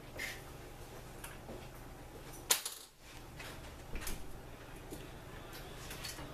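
Small metal parts of a TH400 transmission being handled on a steel workbench: scattered light clicks and clinks, with one sharper clink about two and a half seconds in.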